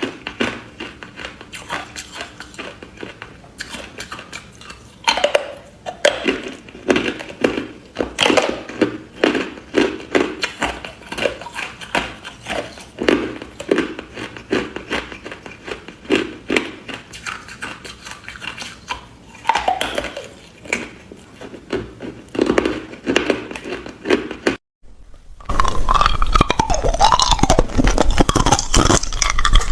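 Hard ice being bitten and chewed up close: irregular sharp cracks and crunches, several a second. Near the end the sound cuts out briefly and comes back louder and denser.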